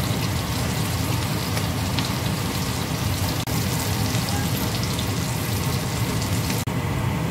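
Breaded chicken wings deep-frying in hot oil in a stainless steel wok: a steady crackling sizzle.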